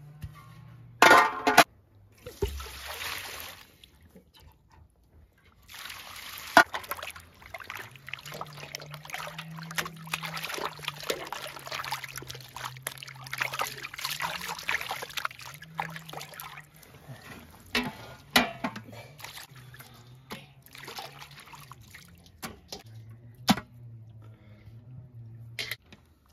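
Water sloshing and splashing in a steel basin as raw liver is washed by hand, after water is poured in from a plastic basin through a metal colander. Sharp metal clanks of the bowl and colander come about a second in and a few more times later.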